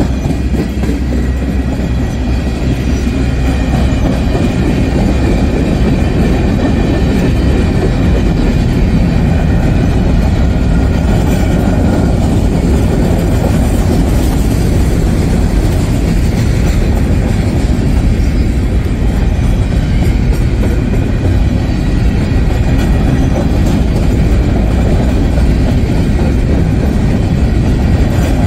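Freight train cars passing at close range, tank cars and then covered hopper cars, their steel wheels rolling on the rails in a loud, steady rumble with some clickety-clack.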